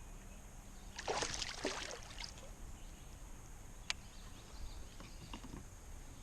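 Water splashing beside a kayak as a hooked fish is brought in, a short burst about a second in, then a single sharp click and a few small knocks.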